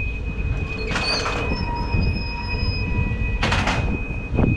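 HADAG harbour ferry's engine rumbling at the pier, with a steady high-pitched whine over it. Two short hisses come about a second in and again past three seconds. Wind buffets the microphone.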